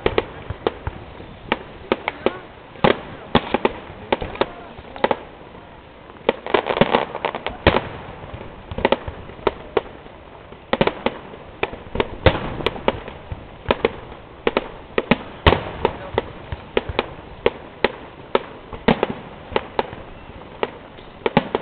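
Fireworks display: aerial shells bursting in quick irregular succession, sharp bangs with echoing crackle, thickest in a couple of clusters of rapid bursts.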